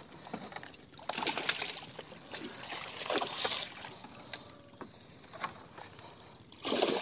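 Water splashing in several bursts as a hooked giant snakehead (toman) thrashes at the surface beside the boat: about a second in, again around three seconds, and just before the end.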